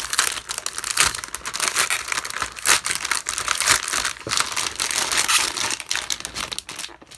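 Crinkly packaging being handled and torn open by hand, a continuous run of irregular crackles and rustles that dies away near the end.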